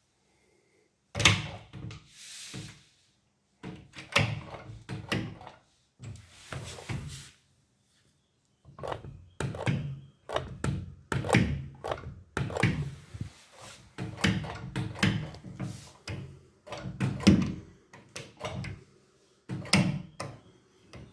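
A door being worked and knocking against a wedge-type alarm door stopper set on the floor behind it: a series of thunks and knocks with short scraping and handling noises between them.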